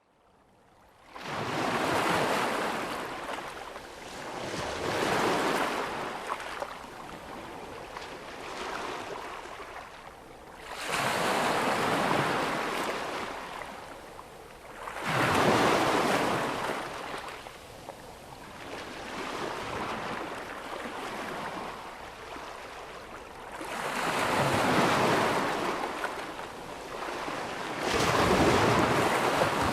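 Ocean waves crashing close up, one surge of surf after another every few seconds, each swelling and washing away before the next breaks.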